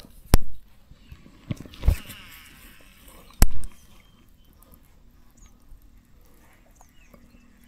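Casting a baitcasting rod and reel: a sharp click just after the start, a short whir of line running off the spool about two seconds in, and another sharp click about three and a half seconds in.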